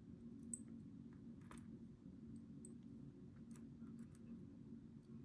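Faint, scattered small clicks of ASSA 700 lock pins and core parts being handled and set in place, about five in all, over a low steady hum.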